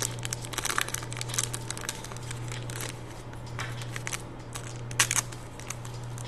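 Foil wrappers of Panini Select trading card packs crinkling as they are handled, with a sharper crackle about five seconds in, over a steady low hum.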